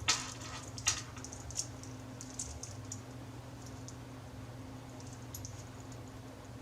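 A few light clicks and handling sounds, the first two about a second apart being the loudest, over a low steady hum.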